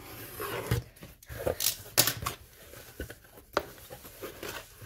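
Cardboard shipping box being opened by hand: a scratchy tearing at the start, then several sharp taps and clicks of cardboard flaps and paper being handled, the loudest about two seconds in.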